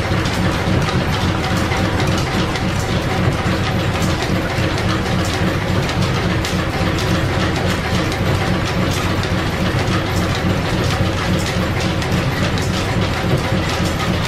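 1925 American 18-inch flat-belt-driven lathe running under line-shaft power, its spinning chuck, headstock gearing and belts making a steady mechanical clatter of fine, even ticks.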